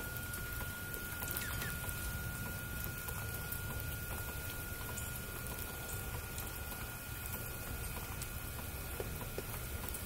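Steady winter outdoor background noise: a low rumble and hiss with a constant thin high tone, and scattered faint ticks.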